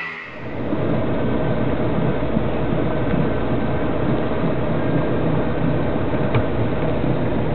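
Motorboat engine idling steadily while the boat sits waiting on the water, with wind and water noise around it.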